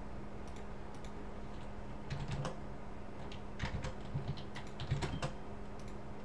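Computer keyboard keys tapped in short scattered clusters while Rhino commands are typed, over a steady low electrical hum.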